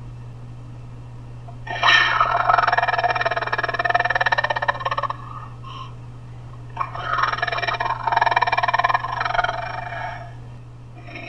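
Homemade dinosaur roar sound effect, a human voice altered to sound like a large animal: two long, gritty roars of about three seconds each, with a steady low hum underneath.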